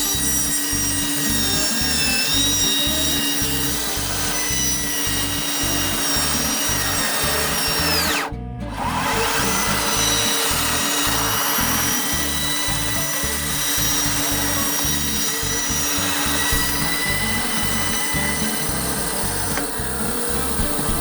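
Background music with a steady beat and sustained tones. About eight seconds in, it slides down in pitch, cuts out briefly, then starts again.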